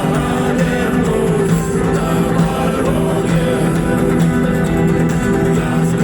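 Rock band playing live in an arena: amplified guitars with singing.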